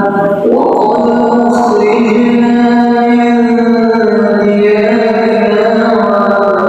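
Vocal music: a voice singing long, held notes that bend slowly, with a new phrase starting about half a second in.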